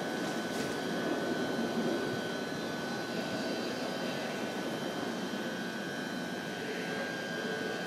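London Underground 1995 Stock train standing at the platform with its doors open, its onboard equipment humming steadily under a thin, steady high whine.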